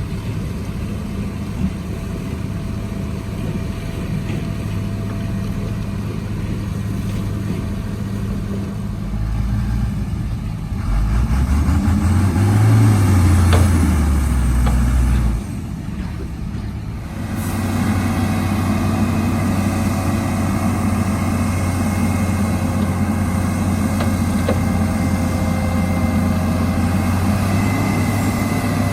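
Heavy diesel engine of earthmoving machinery running, rising in pitch as it revs about a third of the way in and settling back down. About two thirds in, the sound changes abruptly to a steady, slightly louder engine note.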